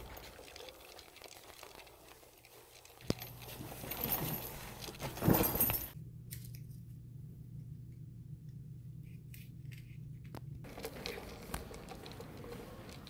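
Rustling and knocks from a phone being handled and carried while walking, with a sharp click about three seconds in and a louder knock a little past five seconds. Then a low steady hum for a few seconds.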